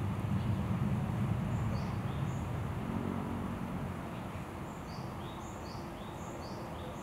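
A small bird calling repeatedly in short, high, falling chirps starting about a second and a half in, over a steady low background rumble that eases a little after the middle.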